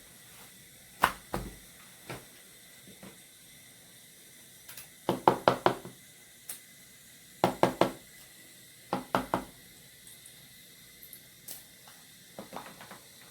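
Slime being squeezed and kneaded by hand, giving clusters of sharp wet crackles and pops in bursts a second or two apart.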